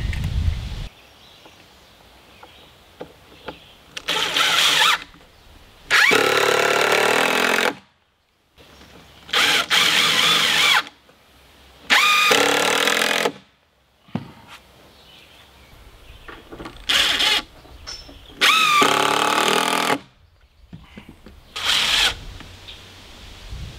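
Ridgid 18V cordless impact driver running screws into plywood in seven short bursts of motor whine, each one to two seconds long.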